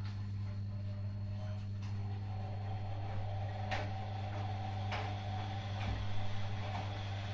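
Bosch Maxx 7 front-loading washing machine running mid-cycle: a steady low motor hum, with a higher whine coming in about two seconds in. There are a couple of sharp clicks and a short dull knock about six seconds in.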